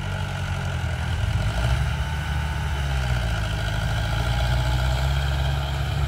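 Heavy diesel engines of a dump truck tipping its raised bed and a crawler bulldozer running together, a steady low rumble.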